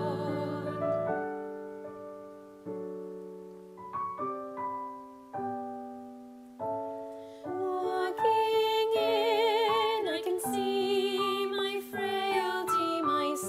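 Slow, gentle piano music, with single notes and chords left to ring and fade. From about eight seconds in, a sustained melody with wide vibrato comes in over the piano, and the music grows louder.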